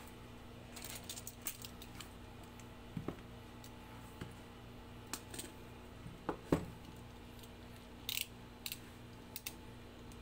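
Cardboard retail box being handled and turned over, with scattered taps, rubs and one louder thump about two thirds of the way in. Near the end come short scraping strokes of a snap-off utility knife cutting the box's seal. A steady air-conditioner hum runs underneath.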